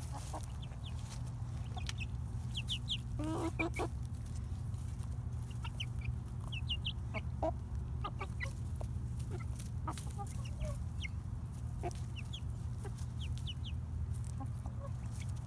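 Young Buff and Lavender Orpington chickens peeping in many short high chirps and giving a few soft clucks while they forage, over a steady low background hum.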